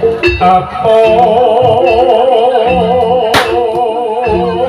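Javanese jaranan music: a long held melody note with a fast, even vibrato over repeated low drum strokes, with one sharp crack about three and a half seconds in.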